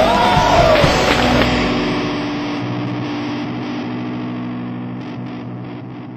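Distorted electric guitar rock music: a bent note in the first second or so, then a held chord that rings on and slowly fades out.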